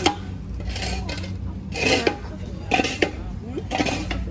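Mason's trowel clinking and scraping against brick and mortar in irregular strokes, roughly one a second, with faint voices behind.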